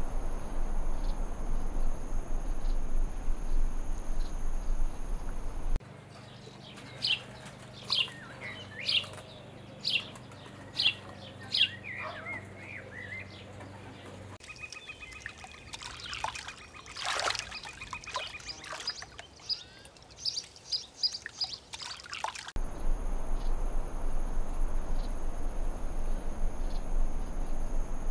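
Layered nature ambience. It opens on a steady high insect buzz over a background hiss. About six seconds in this gives way to bird calls: first a run of sharp downward-sweeping chirps about one a second, then a trilling call with mixed chirping. Near the end the insect buzz and hiss come back.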